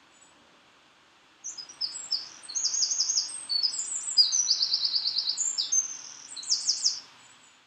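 A songbird singing a fast, high-pitched song of rapid trills and chirps. It starts about a second and a half in and stops near the end.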